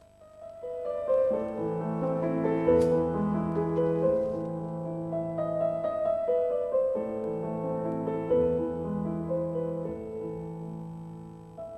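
Gentle piano music fading in, with slow held notes and chords.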